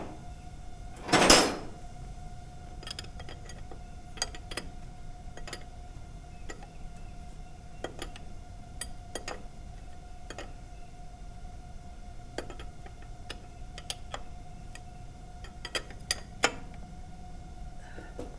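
Hand wrench clinking against the bolts on a hydraulic power-steering pump as they are snugged down: scattered, irregular metal clicks, with one louder scraping clank about a second in. A steady faint hum runs underneath.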